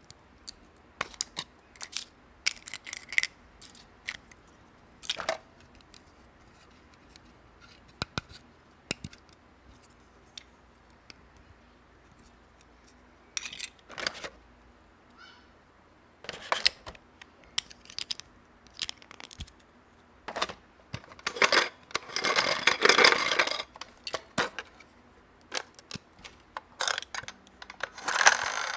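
Small plastic toy pieces and packaging being handled, with scattered sharp clicks and taps. About two-thirds of the way in there is a stretch of rustling lasting about two seconds.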